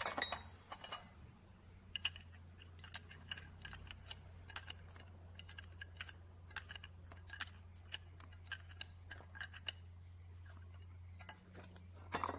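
Steel wrenches clinking against each other and against the control valve body, with irregular sharp metallic clicks while a fitting on the side of the valve is tightened. The clinks are loudest at the start and near the end, as wrenches are picked out of the pile of tools.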